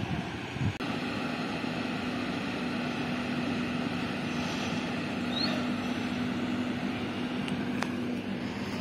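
Steady motor hum with one constant low tone that stops shortly before the end, and a short high chirp about five and a half seconds in.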